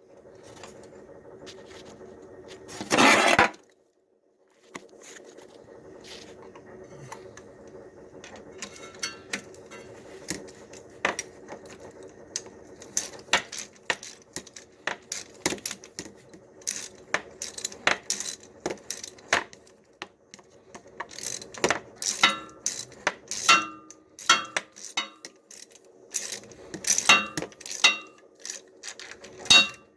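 Metal hand tools and bolts clicking and clinking, with ringing metallic taps, as the thermostat outlet housing is bolted back onto a slant six engine. A steady hum runs underneath, and there is one loud burst of noise about three seconds in.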